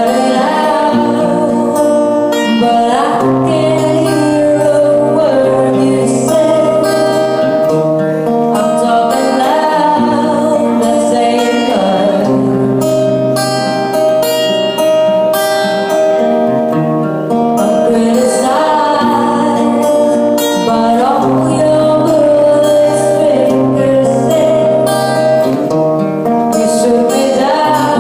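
Music: a song with singing over guitar and a steady bass line.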